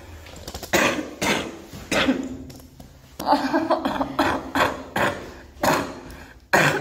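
A girl coughing repeatedly: about ten short, harsh coughs, some coming in quick runs.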